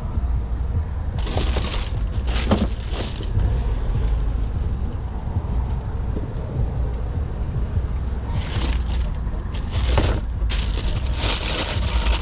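Steady low wind rumble on the microphone, with two stretches of rustling and scuffing as sneakers are handled, and tissue paper in a shoebox crinkling near the end.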